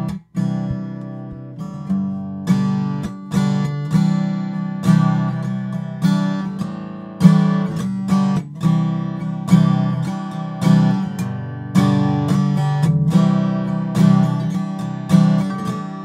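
Recorded acoustic guitar strumming chords, a sharp strum about every half second to a second, each ringing and fading. There is a brief break in the sound just after the start.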